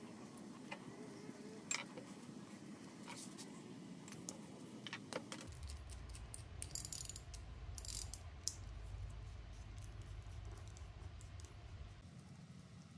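Faint clicks and clinks of small metal and plastic parts being handled and fitted together: a bolt, nut and washers with plastic pieces. A low steady hum sits in the background from about halfway.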